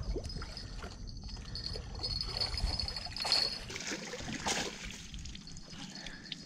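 Water trickling and splashing in short, irregular splatters, with small clicks of things being handled.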